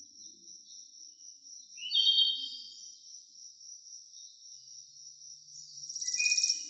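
Crickets trilling steadily, with birds calling over them. A loud call about two seconds in slides down in pitch, and a rapid buzzing trill comes near the end.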